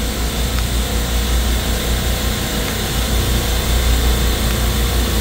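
Steady low hum and drone of a supermarket refrigeration compressor rack running, growing slightly louder as its compressors are switched back on.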